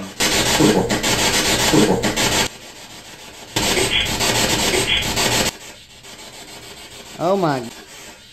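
Spirit box radio sweeping through stations, letting out two loud bursts of static, each cut off abruptly, with faint fragments of voices in the noise. A brief warbling voice-like sound follows near the end.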